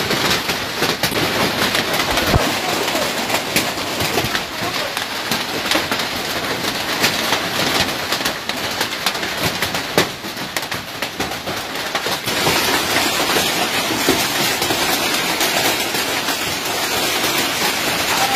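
Heavy hailstorm: hailstones pelting down in a dense, rushing clatter full of sharp knocks as they strike. About twelve seconds in the sound shifts to a brighter hiss.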